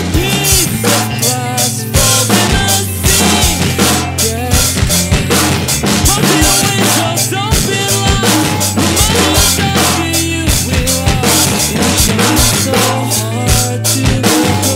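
Acoustic drum kit played hard in a fast rock beat, with bass drum, snare and cymbal hits, over a rock recording of guitars and bass that the drummer is playing along to.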